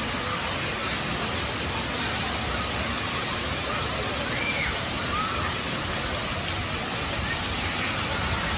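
Steady rush of water from a water-park splash pad's spray jets and fountains, with a few faint voices calling out over it.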